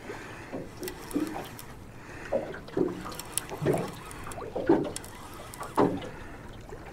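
Small waves slapping against an aluminum boat hull, irregular knocks about once a second over a steady wash of wind and water.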